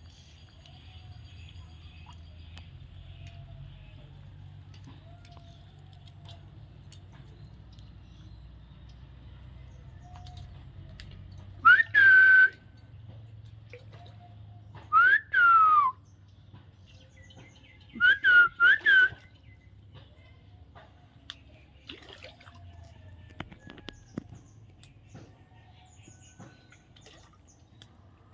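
A bird's loud whistled calls in three bouts: a level note about twelve seconds in, a note that rises and then slides down about three seconds later, and a quick run of four short notes three seconds after that. A low steady hum runs underneath.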